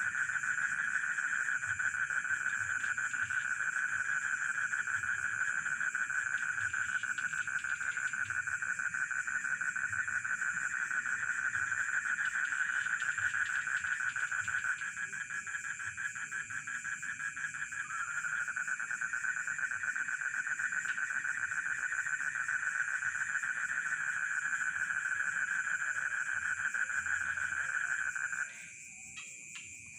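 Chorus of frogs and crickets: a dense, steady trilling with higher, even insect tones above it. The main trill drops out suddenly near the end.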